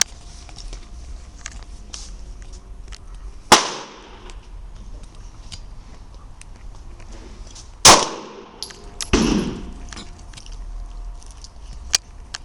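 Two shots from a Glock 17 9mm pistol, about four and a half seconds apart, each a sharp crack with a short echo. A duller, lower bang comes about a second after the second shot, and there is a small click near the end.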